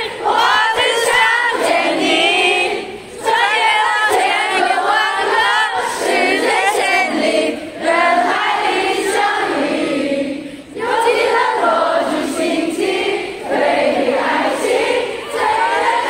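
A large crowd singing a song together, many voices in unison, in phrases broken by short pauses about three, eight and eleven seconds in.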